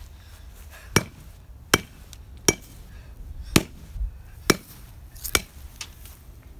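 Baseball bat repeatedly striking a pumpkin on grass: about seven sharp whacks, a little under a second apart.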